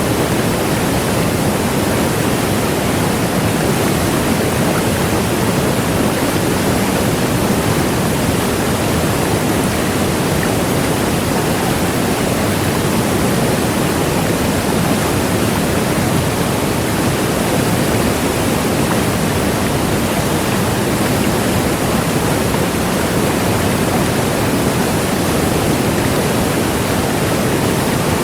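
Large waterfall: a steady, loud rush of falling water with no breaks or changes.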